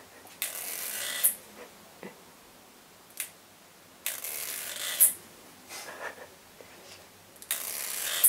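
Teeth of a plastic comb being flicked with a fingernail, a dry rattling crackle in three strokes about a second long each, every stroke ending in a sharp click, with a few single clicks between.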